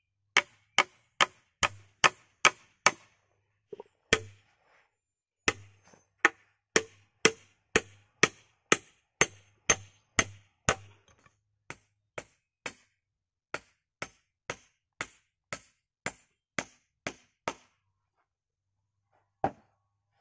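Small hatchet chopping wood in quick, steady strokes, about two to three a second, in several runs with short pauses; the strokes after the middle are lighter, and a single stroke comes near the end.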